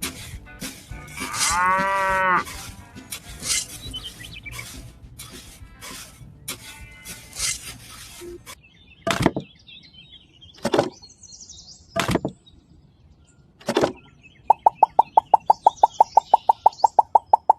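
Sharp clicks and knocks, with a short mooing call about two seconds in and four louder single knocks later on. Near the end a fast, even train of beeps starts, about eight a second.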